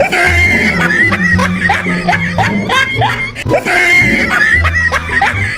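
High-pitched screaming and squealing laughter, a rapid run of short shrieks several times a second, over background music.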